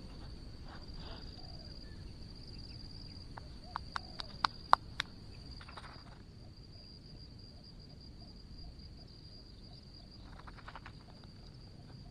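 Insects keep up a steady high-pitched trill over quiet open-air background noise. Around four to five seconds in comes a quick run of half a dozen sharp clicks.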